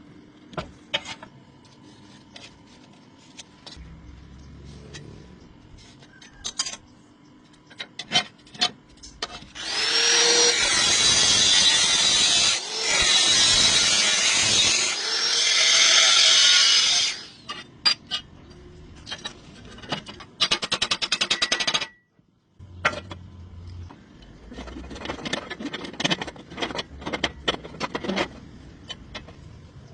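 Workshop sounds in a blacksmith's shop: scattered knocks and clinks, then a power tool that spins up and runs loudly for about seven seconds in the middle. Later comes a fast, even rattle lasting about two seconds, and after a brief break the scattered knocks go on.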